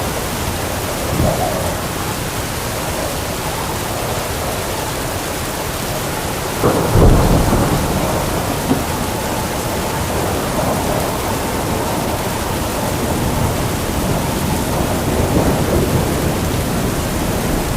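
Heavy torrential rain pouring steadily, with a short crack of thunder about a second in and a louder, deep thunderclap about seven seconds in that rumbles away over a couple of seconds.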